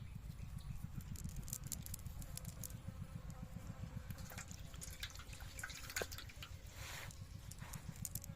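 Water splashing and dripping in short irregular bursts over a steady low rumble.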